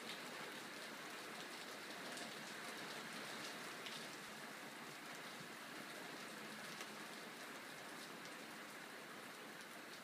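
Steady rain, a faint even hiss with scattered ticks of single drops.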